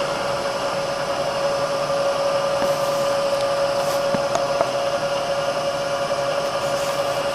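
Machinery running steadily: a constant hum with one steady mid-pitched whine and a few faint ticks.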